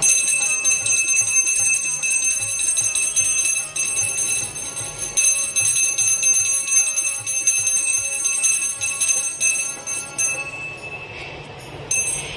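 Hand-held puja bell rung rapidly and continuously, a bright ringing that stops about ten and a half seconds in.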